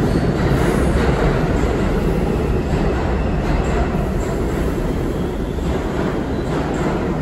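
New York City subway train moving through an underground station on the far track: a steady, loud rumble of wheels on rail that eases slightly toward the end.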